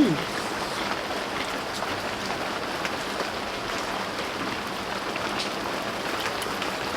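Steady rain falling, an even hiss with a few faint scattered drips.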